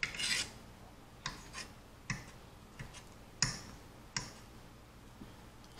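Metal fork clicking and tapping against a plate as it picks up green beans: about six sharp, irregularly spaced clicks, with a short noisy rustle at the start.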